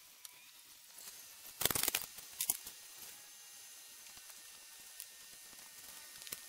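Camping gear and fabric rustling and crinkling as it is handled and packed away: a loud burst of rustling about one and a half seconds in, a shorter one a moment later, then a few faint knocks.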